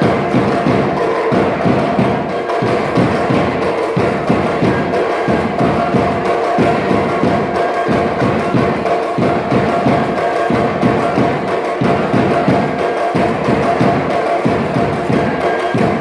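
Tabasco tamborilero music: a carrizo reed flute playing a melody in long held notes over repeated beats on tamborilero drums.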